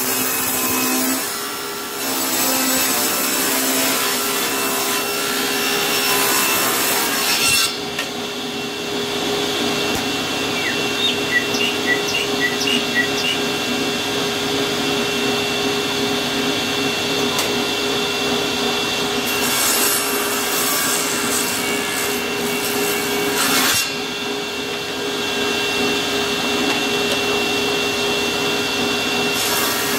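Table saw ripping a board of caxeta wood lengthwise into a strip 7 mm thick. The saw runs steadily throughout, and the cutting noise comes in three passes: at the start, about twenty seconds in, and again just before the end.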